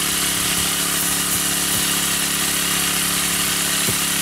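Small petrol engine of a water pump running steadily at an even speed, pumping water into the rat burrows.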